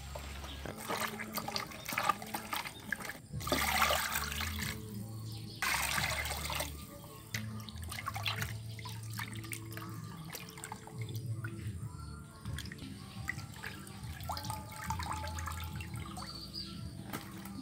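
Water sloshing and splashing in a stainless steel bowl as raw pig intestines are washed and squeezed by hand, with two louder gushes of water about four and six seconds in.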